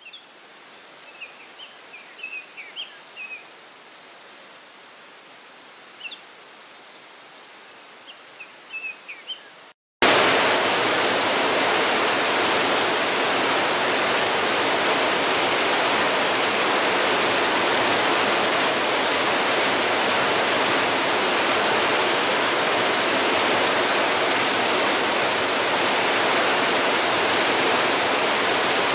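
Birds chirping in short scattered calls over a quiet background. About ten seconds in, after a brief gap, a mountain stream's loud, steady rush of water takes over.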